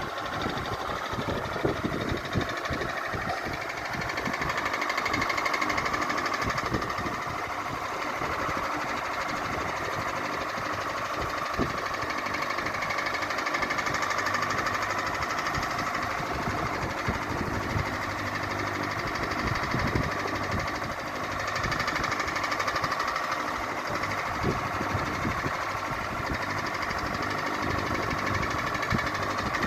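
Ceiling fan running with a steady hum and a fast, continuous rattling clatter, slowly swelling and fading in loudness every several seconds.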